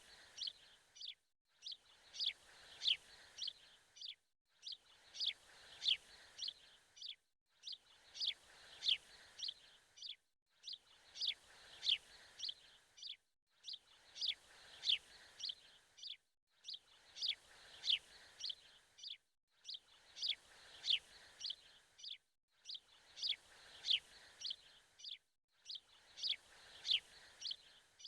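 A short recording of birds chirping, looped over and over: a burst of quick, high, falling chirps repeats about every three seconds, each loop cut off by a brief dead silence.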